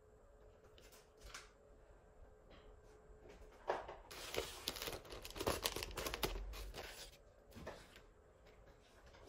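Thin translucent plastic stencil sheets rustling and crackling as they are handled, flexed and swapped, densest for about three seconds in the middle, with fainter rustles and small clicks before and after.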